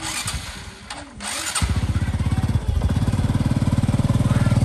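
Step-through motorbike's small engine being started: a few clicks and knocks, then the engine catches about one and a half seconds in and runs steadily with an even, quick beat, growing slightly louder.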